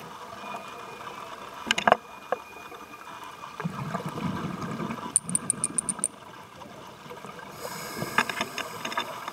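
A scuba diver breathing through a regulator, heard underwater: a burst of exhaled bubbles burbling about four seconds in, then the hiss of an inhalation near the end. Scattered sharp clicks and a quick run of high ticks midway.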